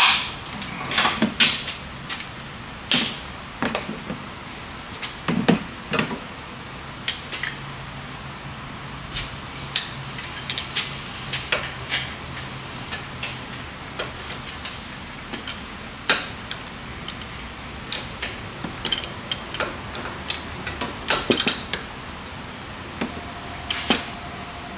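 Hand wrench work on the bolts of an SUV's front upper control arm: an irregular run of sharp metallic clicks and clanks as the wrench is fitted and pulled on the eccentric bolts.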